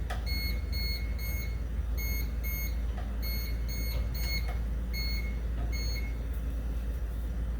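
Electrical tester giving short, high-pitched beeps, often in pairs and unevenly spaced, while checking for live power at a hardwired smoke alarm. The beeping stops about six seconds in.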